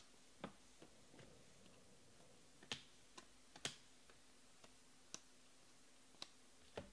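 Faint, scattered clicks and snaps of stiff chromium Panini Prizm trading cards being flipped and slid against each other in the hands, about ten sharp ticks spread over the stretch.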